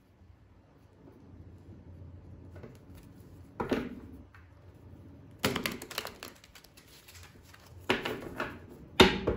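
A deck of tarot cards shuffled by hand: short bursts of cards clattering and slapping together. There is a quick rattling run about five and a half seconds in, and a sharp knock near the end.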